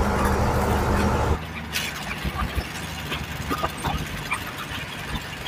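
Truck engine running, heard from inside the cab as a steady low hum. About a second and a half in it drops abruptly to a quieter low rumble with scattered clicks and rattles.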